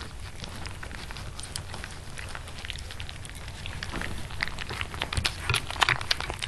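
A litter of three-week-old Labradoodle puppies lapping and smacking at a plate of soft, mushy puppy food: a patter of small wet clicks that grows busier and louder about four seconds in.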